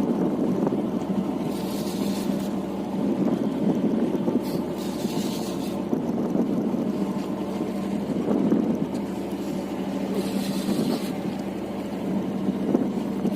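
Boat engine running with a steady low hum, with a few brief rushes of noise over it.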